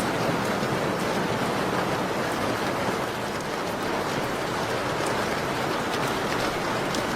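Steady rain falling as an even hiss, with faint scattered ticks through it.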